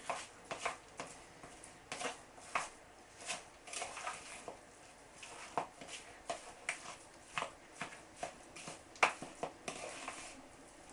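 A spoon clicking and scraping against a bowl while stirring a thick frozen fruit and yoghurt mixture: irregular taps about one or two a second, the loudest about nine seconds in.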